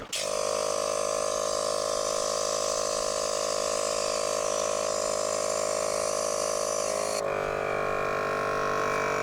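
VIAIR 450P-RVS portable air compressor running steadily, pumping air into an inflatable. About seven seconds in, the hiss drops away and the motor note changes.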